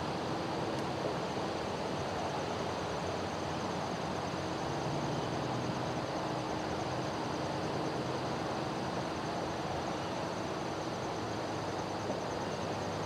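Distant steady drone of two approaching SD40-3 diesel locomotives, EMD two-stroke engines, with a steady high trilling of insects over it.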